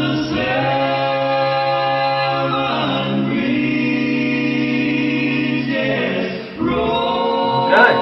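Male a cappella vocal group singing in close multi-part harmony, with long held chords that shift, and a short break in the singing about six and a half seconds in.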